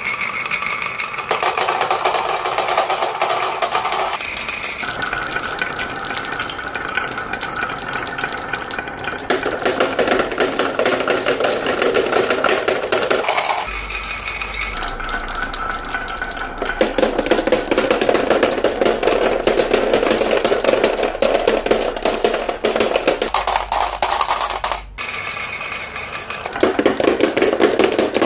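A stream of marbles rolling and clattering down a wavy wooden slope, knocking against the wood and one another in a dense run of clicks, and dropping into a plastic toy dump truck's bed.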